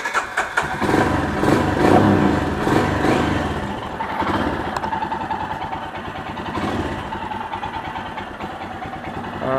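Royal Enfield Himalayan's 411 cc single-cylinder engine running. It is loudest over the first two seconds or so, as if revved, then settles to a steady idle.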